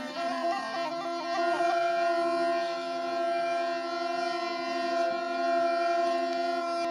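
Wind instrument playing a folk melody over a steady drone, settling about a second and a half in on one long held note.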